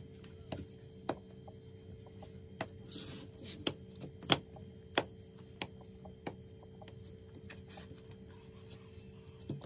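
A run of sharp knocks and taps at uneven intervals, about nine over six seconds, the loudest a little past four seconds in, over a steady low hum.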